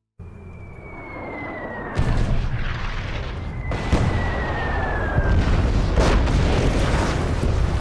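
Incoming artillery shells whistling down in falling tones, twice, and exploding. Sharp blasts come about two, four and six seconds in, over a continuous low rumble of battle.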